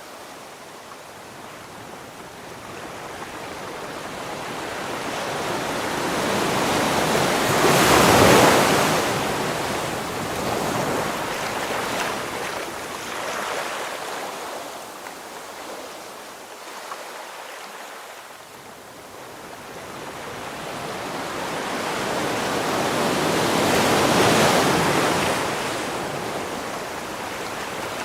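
Ocean waves on a shore: a steady surf hiss that swells as a wave builds and breaks, twice (about a quarter of the way in and again near the end), then eases back as it washes out.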